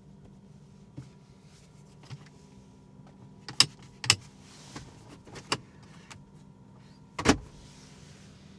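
A few sharp clicks and knocks inside a car cabin over a faint steady hum, with the loudest, a duller thump, about seven seconds in.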